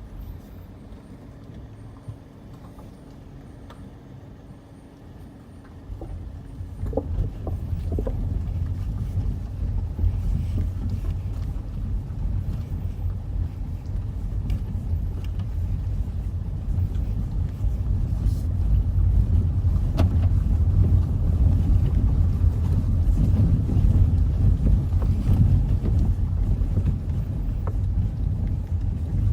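A car on the move, heard from inside: a low, steady engine hum at first, then a much louder low rumble of road and wind noise that sets in about six seconds in and slowly grows.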